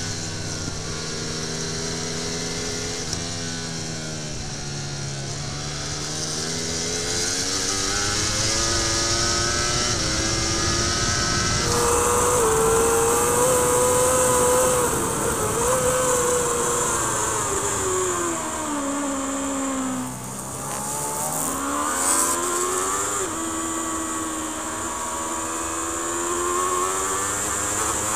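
Onboard sound of racing superbikes' inline-four engines at speed, with wind rush. The Yamaha's engine note rises and falls through the corners. After an abrupt cut about twelve seconds in, the BMW's engine runs high, falls steeply about two-thirds of the way through as the bike slows, then climbs again as it accelerates.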